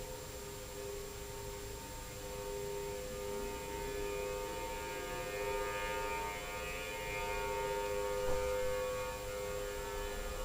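Outdoor tornado warning sirens sounding a steady, held two-note tone, growing a little louder about a third of the way in. In Hamilton County this signals a tornado watch combined with a severe thunderstorm warning.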